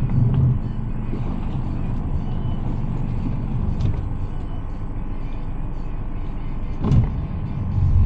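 Boat motor running steadily, a low rumble, with a single knock about seven seconds in.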